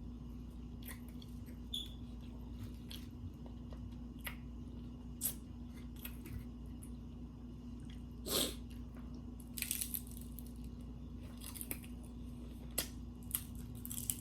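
A person eating tacos close to the microphone: scattered chewing, crunching and mouth clicks, louder about eight and ten seconds in, over a steady low hum.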